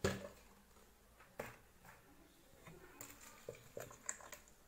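Plastic blender jar being handled: a sharp click at the start and another about a second and a half in, then small clicks and faint splashing as semolina batter for baghrir is poured from the jar into a plastic bowl.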